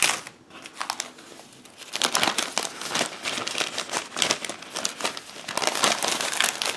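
Newspaper packing being handled and unfolded by hand: newsprint rustling and crinkling, sparse at first and busier from about two seconds in.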